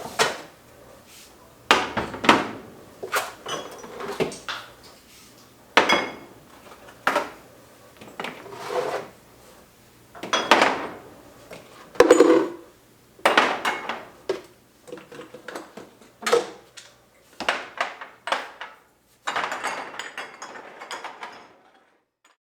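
Irregular clinks and knocks of bottles, jars and food containers as they are taken out of a refrigerator and its door shelves and set down on a hard surface.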